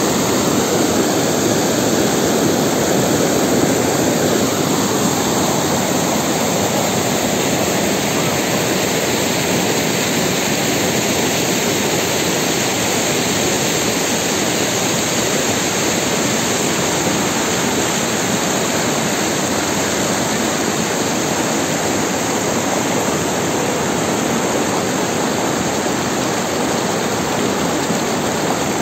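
Fast mountain river rushing, a steady, very loud wash of water.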